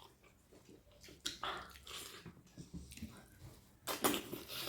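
A person chewing and eating close to the microphone, with wet mouth clicks throughout. Louder bursts come about a second in and again near the end.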